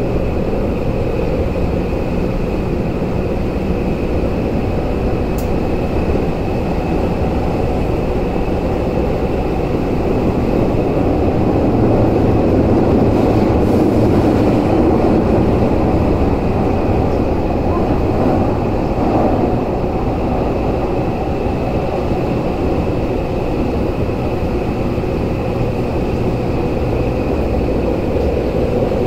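Tokyu 8500 series subway train running through a tunnel, heard from inside the car: a steady rumble of wheels and traction motors with a faint high whine underneath. It grows louder for a few seconds in the middle, then settles back.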